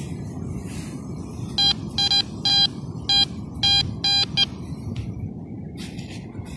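TX-850 metal detector beeping, about eight short identical beeps over three seconds, as its coil is held over a dug hole in sand: it is signalling a metal target still buried there.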